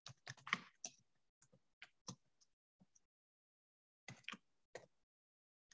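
Faint keystrokes on a computer keyboard: a quick run of key clicks in the first second, a few single taps, then another short run about four seconds in.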